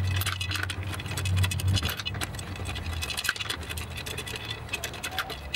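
Lug nuts being taken off a car wheel with a hand lug wrench: many quick metallic clicks, scrapes and rattles of the wrench on the nuts and the nuts turning on the studs, over a steady low hum.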